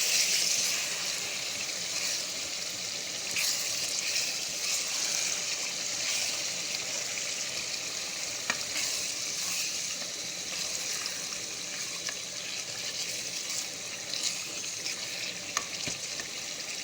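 Tomato stew frying in groundnut oil in a pot: a steady sizzling hiss now that the water has cooked off, with a few faint light clicks.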